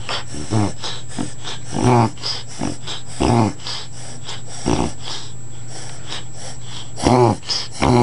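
Dog reverse sneezing: about six short honking snorts, each falling in pitch, spaced a second or so apart with a longer pause before the last two. A steady low hum runs underneath.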